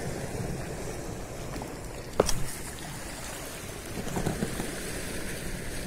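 Small sea waves washing and lapping against shoreline rocks, with wind on the microphone, and one sharp click about two seconds in.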